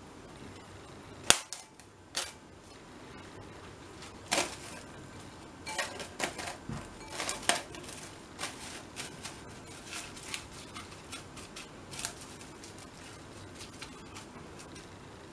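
Plastic cling film crackling and snapping as it is laid over a glass bowl and pressed down by hand onto the raisins. A sharp snap about a second in is the loudest, followed by a few more snaps and then a run of small, quick crackles.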